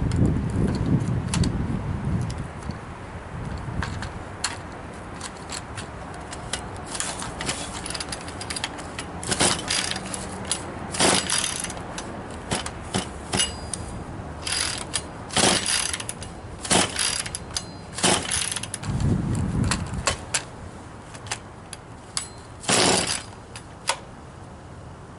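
Pull-starter of a Poulan 4620 chainsaw being yanked over and over, each pull a short ratcheting whirr, with small clicks between pulls; the engine does not catch. Wind rumbles on the microphone at the start and again about 19 seconds in.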